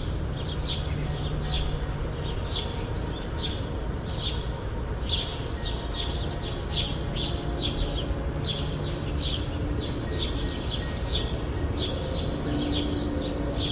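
A bird calling in a steady series of short, falling chirps, about two a second, over a steady background rumble.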